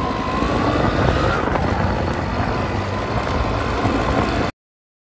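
Tractor engine running while driving along. The sound cuts off suddenly about four and a half seconds in.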